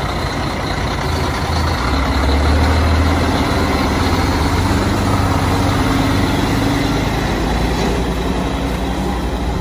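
Heavy machine engine running steadily, with a steady high whine over it, growing a little louder about two seconds in.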